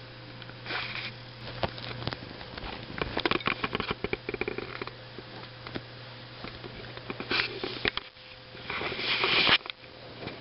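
Irregular bursts of rustling and scratching as tabby kittens tussle and paw at bedding and a hand, over a steady low hum.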